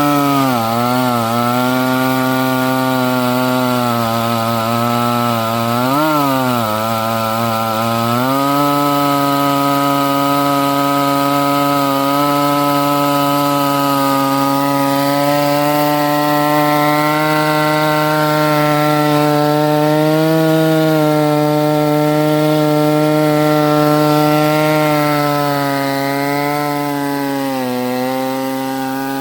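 Chainsaw running at full throttle in an Alaskan chainsaw mill, ripping a slab lengthwise from a log. The engine pitch sags briefly a few times as the bar loads up in the cut, then recovers and holds steady.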